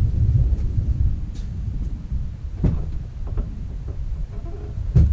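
Chevrolet 6.0-litre Vortec V8 running at idle under the open hood after a fresh oil change: an uneven low rumble. Two sharp clicks come through, about halfway and again near the end.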